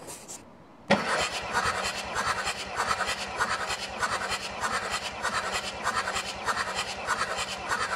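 Starter motor cranking a cold Audi 2.5 TDI V6 diesel with all its glow plugs removed, for a compression test. It starts suddenly about a second in and runs with an even, rhythmic beat until it stops near the end, while the gauge on cylinder six builds to 25 bar, a good reading.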